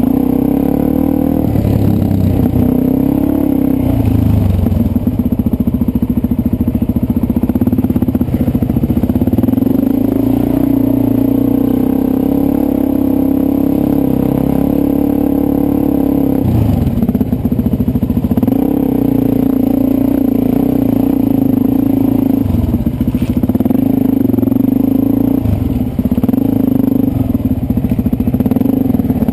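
Dirt bike engine running hard along a trail, its revs rising and falling with the throttle, close up from the rider's helmet. The revs drop briefly a little past halfway and again near the end.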